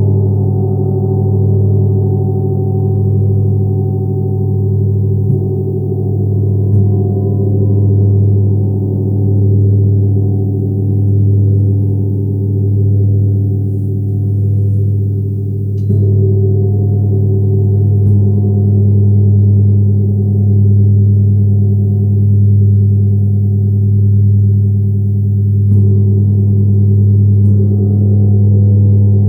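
Tibetan gong ringing in a deep, sustained drone with many overtones, swelling and fading in slow waves. It is struck again softly several times, each stroke freshening the ring.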